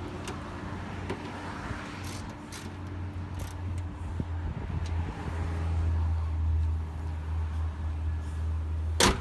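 Low steady vehicle rumble that swells for a couple of seconds and then eases, with a few light clicks. A single sharp thump near the end is the loudest sound.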